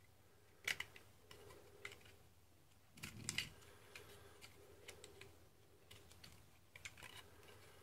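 Faint clicks and scrapes of a snap-off cutter knife blade shaving mould lines off hard plastic kit parts. They come in short bursts: once about a second in, a cluster around three seconds in, and again near the end.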